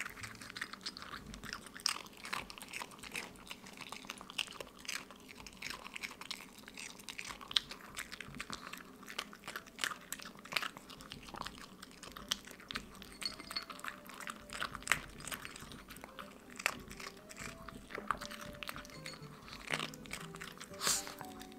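A small mixed-breed dog eating dry kibble: a quick, uneven run of crisp crunches and chewing, with soft background music underneath.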